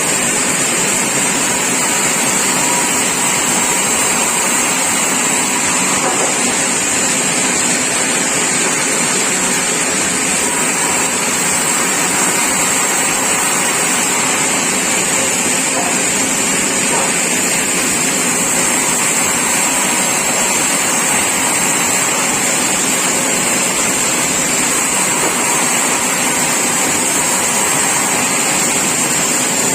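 Sawmill saw running steadily, a loud constant rush of machine noise with a high whine held throughout.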